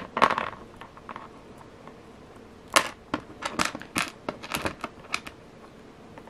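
Small metal jewelry findings, a jump ring and a toggle clasp bar, clicking against each other and against the bracelet's beads as fingers handle them. A brief handling noise comes at the start, then about a dozen light, quick clicks from about three seconds in.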